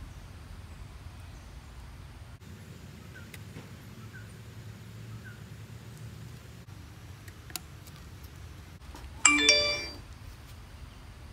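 A bicycle bell rung once on the shared bike's handlebar, a single bright ding about nine seconds in that starts sharply and rings away within a second.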